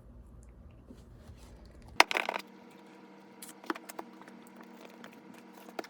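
Unboxing packaging being handled by hand: a loud, brief crinkle about two seconds in, then scattered small clicks and taps.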